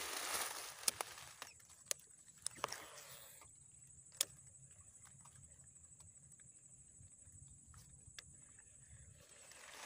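Footsteps brushing and crunching through dry grass and fallen palm fronds for the first second or so and again briefly around three seconds in, with a few sharp snaps; then the footsteps stop and it goes quiet apart from two more single clicks.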